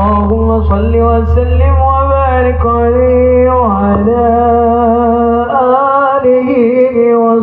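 A hadroh devotional song played loud through a twelve-subwoofer sound system: one singer holds long, wavering notes over a heavy bass hum that drops out about five and a half seconds in.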